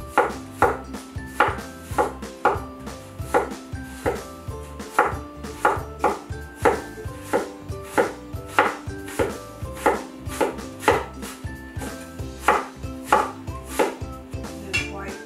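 Knife shredding red cabbage on a bamboo cutting board: a steady run of sharp chops, about one and a half a second, each blade stroke knocking on the wood. Faint music runs underneath.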